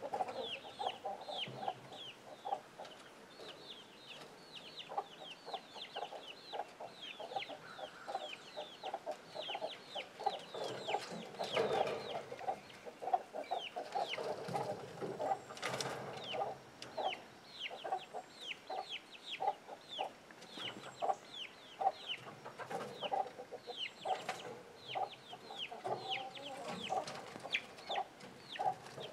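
Young chicks peeping steadily, a dense stream of short falling chirps, over a hen's repeated low clucking.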